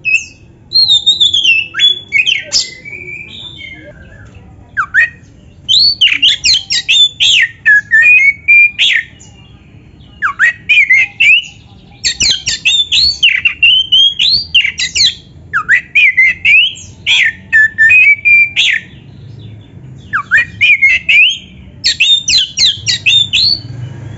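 Oriental magpie-robin (kacer) singing a loud, varied song: phrases of quick whistled notes sweeping up and down, each a second or two long, with short pauses between.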